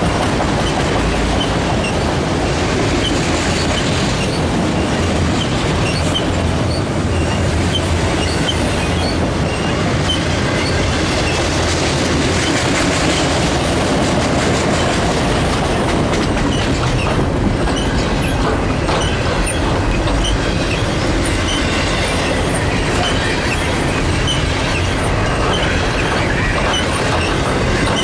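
Freight train of autorack cars rolling past close by: a steady loud rumble of steel wheels on rail, with wheels clicking over the track and occasional short wheel squeals.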